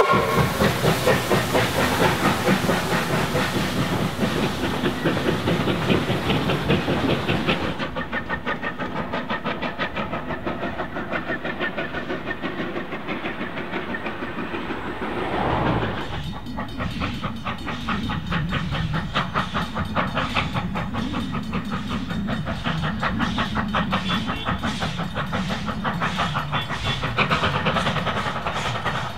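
NZR Ww class 4-6-4T tank steam locomotive running, its exhaust beating in a steady rhythm over a hiss of steam. The sound changes abruptly about eight and again about sixteen seconds in.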